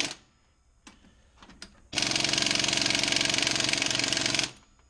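Impact gun hammering on the crankshaft bolt of a Ford 5.4 3-valve engine's harmonic balancer, in one burst of about two and a half seconds that starts about two seconds in. The burst turns the new torque-to-yield bolt its final 90 degrees to stretch it. A few faint clicks come before it.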